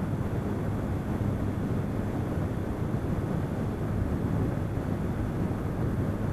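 Motorcycle cruising at highway speed: a steady rush of wind noise over the microphone mixed with the engine running.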